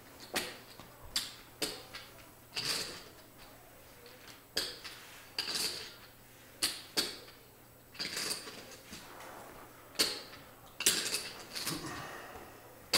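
Poker chips clicking and clattering in short, irregular bursts as they are handled and stacked, with the loudest clatter near the end.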